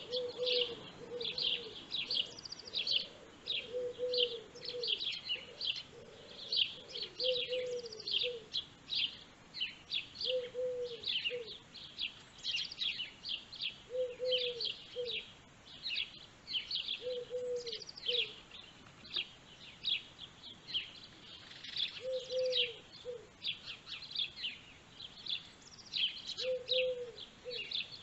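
Many small birds chirping busily and irregularly throughout, with a lower two-note bird call repeating about every three seconds.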